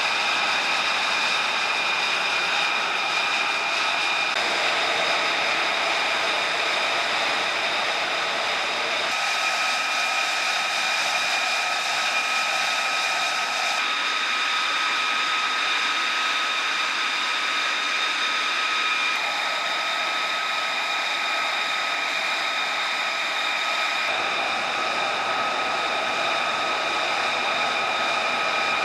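F-35B Lightning II jet engine, a Pratt & Whitney F135, running steadily. It makes a strong hiss with several steady high-pitched whines over it, and the tone shifts slightly every few seconds.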